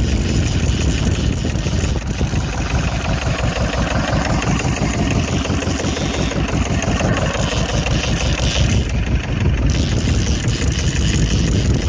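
Fishing boat's engine running steadily at low speed, with a fast, even beat.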